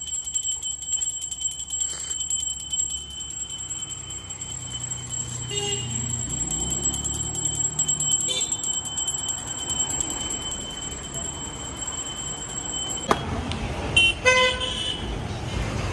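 Road traffic passing, its rumble swelling and fading, then a vehicle horn honking near the end, just after a sharp knock.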